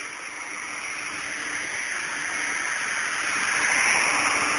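ED-200 diesel generator, powered by a 12-cylinder tank engine, running under load with its radiator fan drawing air: a steady rushing noise heard at the enclosure's intake grille, very noisy, growing louder over about four seconds.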